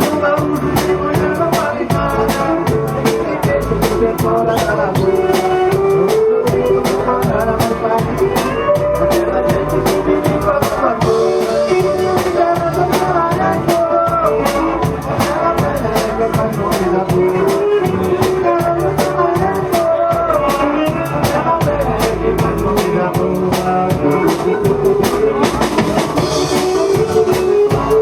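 Live band playing a xote with accordion (gaita) melody over a drum kit keeping a steady beat.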